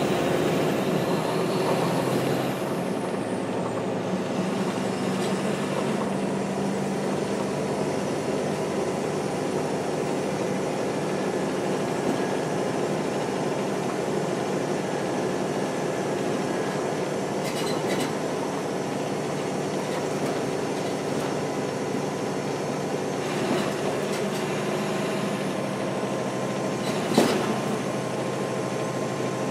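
Caterpillar C-13 diesel engine of a NABI 416.15 transit bus running under way at speed, a steady drone that is louder for the first couple of seconds and then eases off a little. A sharp click sounds near the end.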